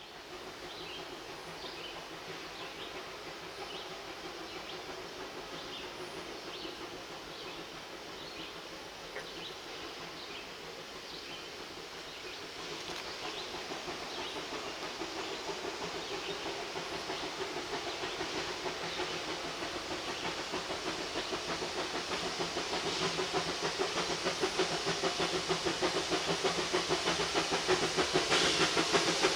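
Bridgton and Saco River #7, a two-foot gauge steam locomotive, running with a steady steam hiss and regular light clicks, growing steadily louder.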